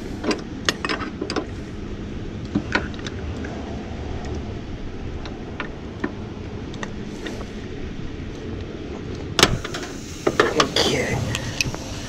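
Hand tools and wiring being handled at an air conditioner's high-pressure switch: scattered light clicks and ticks, a sharp metal click about nine and a half seconds in, then a flurry of clatter near the end as pliers and a wrench go onto the switch.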